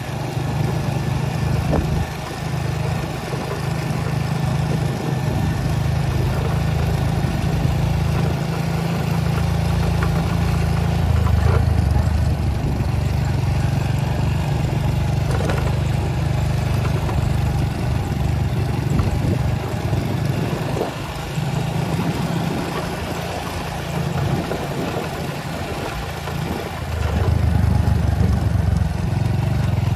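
A motor vehicle engine running, with a heavy low rumble that swells and eases several times.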